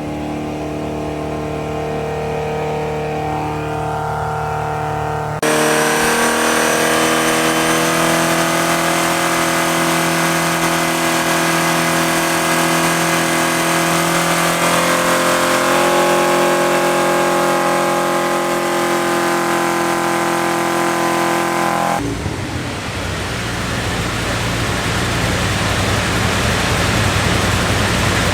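Porsche 944's 2.5-litre eight-valve four-cylinder running under load on a chassis dyno through a stepped header, its note held at fairly steady revs and climbing slowly. About five seconds in it jumps louder. Near 22 seconds it gives way to a loud, steady rushing noise with a low rumble.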